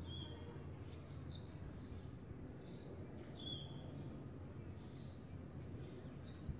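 Ambient birds chirping: short high chirps and quick downward-sweeping calls, roughly one a second, over a steady low rumble of background noise.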